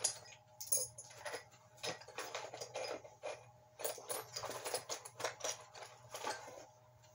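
Small metal hand tools and parts being handled, clinking and rattling in a string of irregular clicks and clatters.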